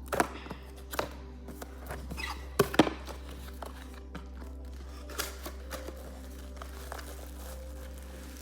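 Packaging of a cosmetics storage box being handled: a few sharp knocks, the loudest pair about two and a half seconds in, with light crinkling between them.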